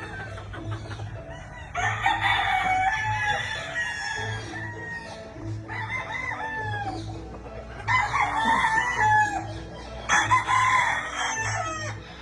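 Gamefowl roosters crowing, four long crows one after another about two seconds apart, over a steady low rhythmic pulse.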